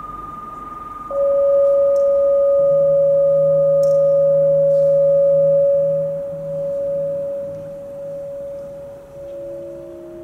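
Electronic soundtrack of held pure tones: a high tone fades away while a louder middle tone comes in sharply about a second in and holds steady until near the end. A low hum joins beneath it and starts to pulse halfway through, and two new tones enter near the end.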